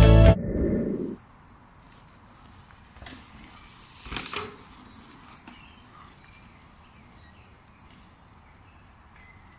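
Quiet woodland ambience with small birds chirping. About four seconds in, a mountain bike rides over a dirt jump, with a short swell of tyre and rush noise as it passes. A brief low rumble comes right at the start.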